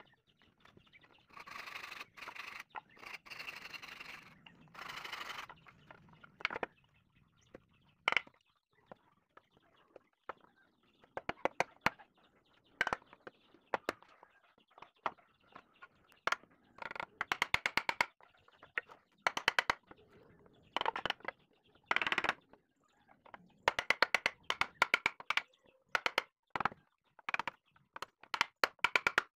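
A hammer tapping the mortise-and-tenon joints of a teak window sash frame together, in quick runs of sharp blows with short pauses between them. A few seconds of softer rasping come near the start.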